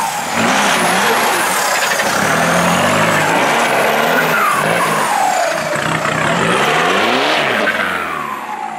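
Off-road 4x4 engine revving hard, its pitch rising and falling again and again as the vehicle claws up a loose dirt bank, with tyres spinning and throwing dirt.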